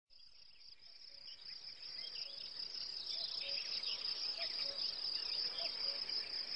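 Steady high-pitched insect chorus with scattered short chirps, fading in over the first few seconds.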